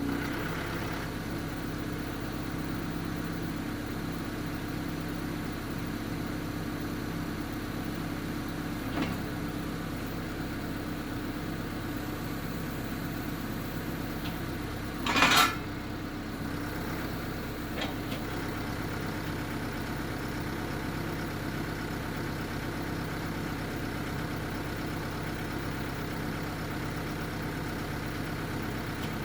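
John Deere 310L EP backhoe loader's diesel engine running steadily, with one loud sudden crack or clunk about fifteen seconds in and fainter knocks a few seconds before and after it.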